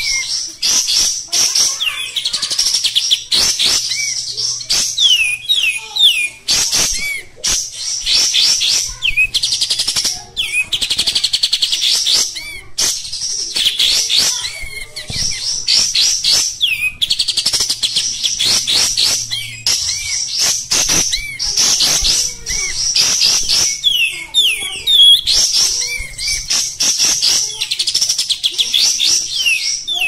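Olive-winged bulbul (kapas tembak) singing continuously in rapid chattering phrases of quick repeated notes, with a few downward-slurred whistles between them.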